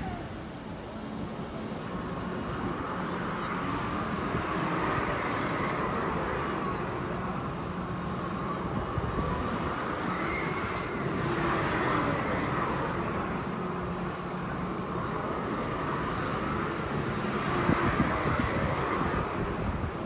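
Outdoor carnival ambience: a steady low mechanical hum under a wash of distant voices and traffic-like noise.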